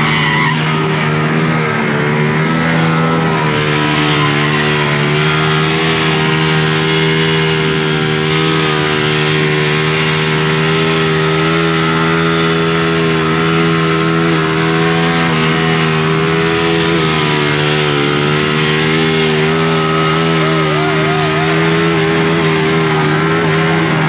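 Motorcycle engine held at high revs through a rear-wheel burnout, at a nearly steady pitch, over the hiss and screech of the rear tyre spinning on asphalt.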